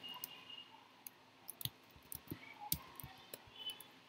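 Faint, irregular clicks of a computer keyboard and mouse as a short word is typed.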